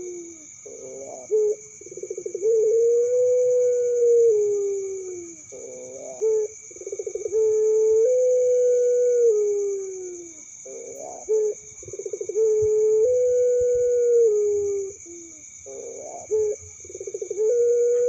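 Barbary dove (puter pelung) cooing four times. Each coo is a short rough, rolling burst followed by a long drawn-out note that bends down in pitch at its end.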